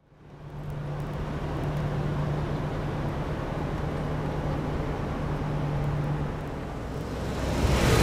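A vehicle running, heard from the driver's cab: a steady low hum with engine and road noise, getting louder near the end.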